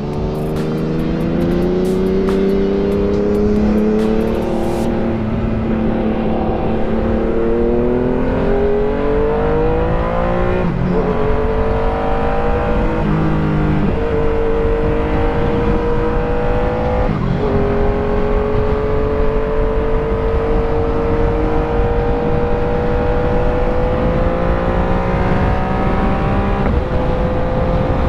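Sport motorcycle engine under way, its pitch climbing slowly and dropping sharply four times at gear changes, over a steady rush of wind noise.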